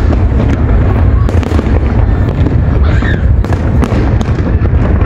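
Aerial fireworks display: rapid, overlapping bangs and crackles of bursting shells over a continuous low rumble.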